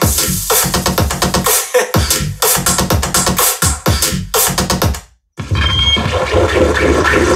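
Electronic music played through a portable Bluetooth party speaker in a sound demonstration. It comes in choppy, stop-start phrases, cuts to silence for about half a second about five seconds in, and then carries on in a fuller section with heavy bass.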